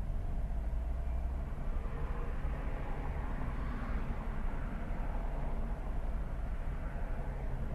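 Steady low engine rumble of a vehicle heard from inside its cab, with a swell of passing-traffic noise peaking a few seconds in.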